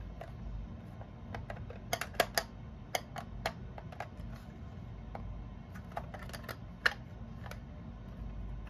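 Plastic Lego bricks clicking and snapping as a built Lego bus section is pressed back into place: a scattering of small, sharp clicks, the loudest about two seconds in and again near seven seconds.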